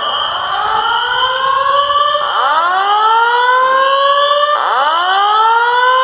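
Fire alarm speaker strobes sounding a slow whoop: a rising tone that restarts about every two and a half seconds, over a steady high tone. The alarm was tripped by the FM-200 fire suppression system in a server room.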